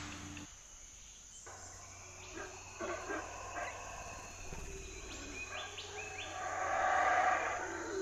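Tropical forest ambience: scattered bird calls and short rising chirps over a steady high insect drone, growing louder and busier near the end.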